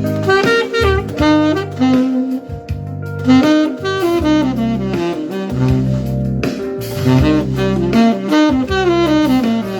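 Saxophone playing a quick improvised phrase on the pentatonic scale, with varied rhythmic divisions, articulations, accents and melodic leaps rather than straight scale runs, over a jazz backing track with bass.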